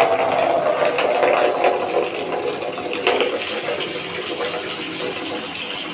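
Water from a tap gushing into a plastic bowl as it fills, a steady splashing pour that eases slightly in loudness over the seconds.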